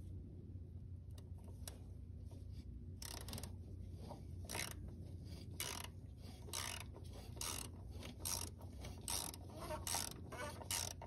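A ratchet wrench clicking in short bursts, about one a second from a few seconds in, as it turns a Toyota Corolla's cartridge oil filter housing cap back on.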